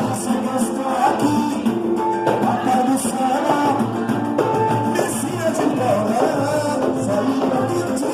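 Live band music with a voice singing over pitched instruments and a steady low beat.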